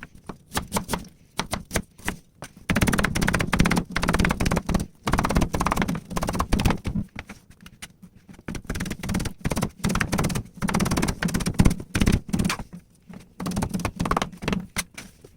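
Rapid, irregular knife chopping on a cutting board, in quick runs of knocks, with a steady low hum underneath.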